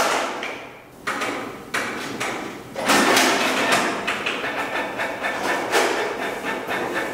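Inkjet printers working, their paper-feed and print-head mechanisms giving a run of clunks and knocks with mechanical rattling between, loudest about three seconds in.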